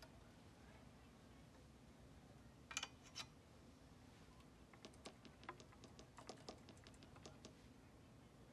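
Quiet room tone with light clicks: two louder clicks about three seconds in, then a quick, irregular run of small clicks, like keys being tapped.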